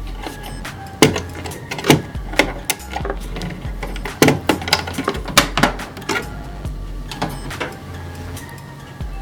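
Plastic clicks and knocks of cables being unplugged from a wireless router, over background music with a low bass pulse.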